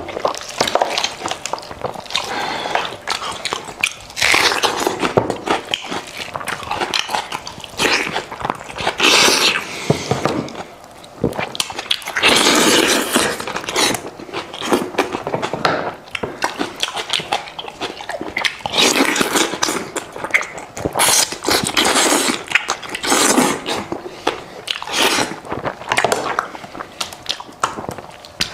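Close-up eating sounds: meat being torn off a roasted goat head by hand, then chewed and bitten, in irregular bursts.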